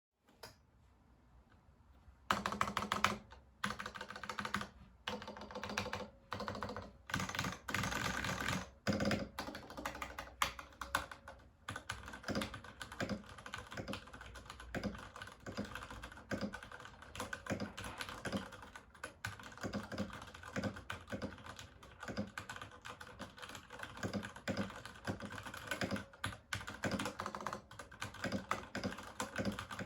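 Typing on a Varmilo x Ducky Miya Pro mechanical keyboard. After a faint first two seconds come bursts of fast keystrokes with short pauses between them, settling after about twelve seconds into steady, continuous typing.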